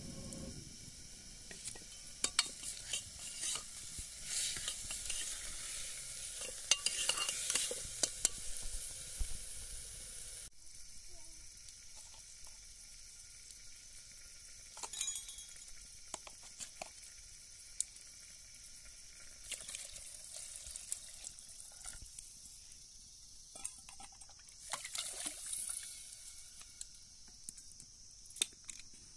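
Food sizzling in a hot pan while a spoon stirs, scraping and clinking against the metal. About ten seconds in the sizzle cuts off suddenly, leaving scattered scrapes and clinks, with a short burst of sizzling again near the end.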